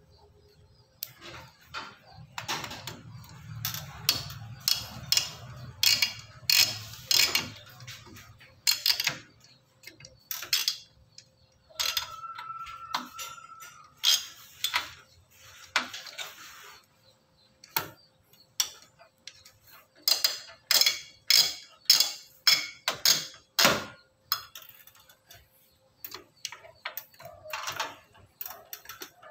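Irregular clicks, rattles and rustling of a desktop PC's wiring and plastic connectors as hands handle and pull the cables inside the metal case. The clicks come in clusters of several a second, with short pauses between.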